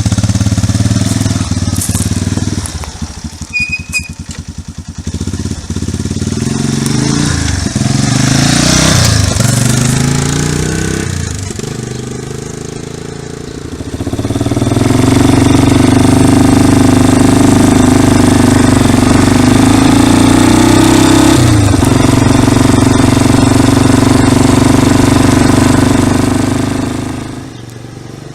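Yamaha 350 quad bike engine running, revving up and down a few times, then running steady and louder from about halfway through, and easing off near the end.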